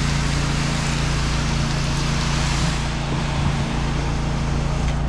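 Pressure washer engine running steadily under a continuous hiss of water spray, as a downstream soap mix is sprayed onto a house wall.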